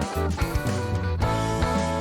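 Background music with a steady beat, led by guitar over a strong bass line.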